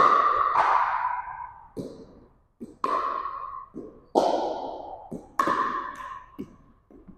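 Pickleball paddles striking a plastic pickleball in a rally: four loud, ringing pocks that echo off the gym walls, with lighter knocks in between.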